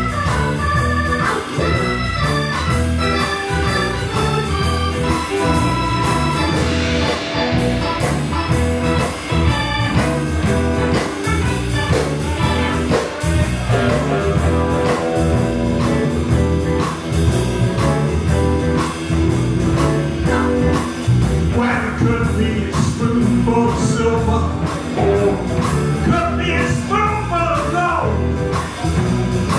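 Live blues band playing an instrumental stretch: drums and bass keep a steady beat under electric guitars and an organ-toned two-manual keyboard holding long chords.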